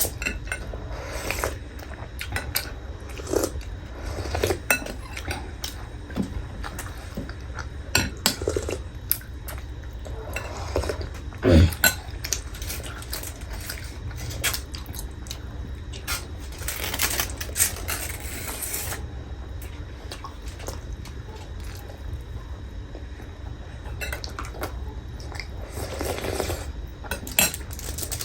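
Cutlery clinking and scraping against plates and bowls in irregular clicks, with a few longer noisy stretches about halfway through and near the end.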